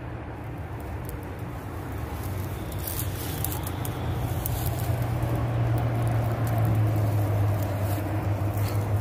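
A low, steady engine hum, typical of a passing motor vehicle, growing louder over the second half, with faint clicks and rustle of a cast net's rope being handled.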